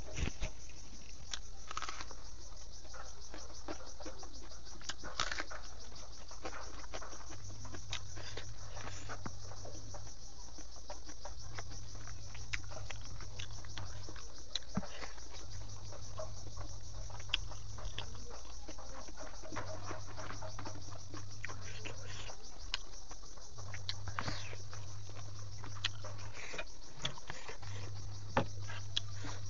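Close-miked mukbang eating sounds: chewing of pork intestines and rice, with many small wet clicks and lip smacks. A low hum comes and goes about every four seconds.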